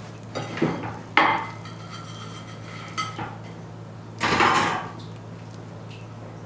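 Dishware and utensils clattering as food is plated: a couple of soft knocks, a sharp ringing clink about a second in, another clink near three seconds, and a longer rattling scrape at about four seconds, over a steady low hum.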